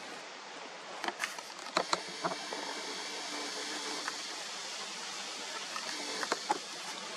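A few sharp clicks and snaps, a quick cluster about a second in and two more near the end, over a steady hiss.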